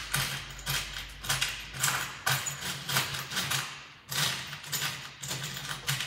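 Irregular small metallic clicks and taps as a brass gas-burner jet is handled and screwed by hand onto the cooktop's valve fitting, over a steady low hum.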